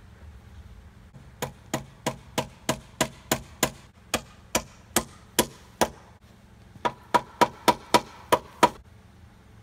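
Hammer driving nails into a wooden stair stringer: a run of about a dozen steady blows, roughly three a second, then after a short pause a quicker run of about eight blows.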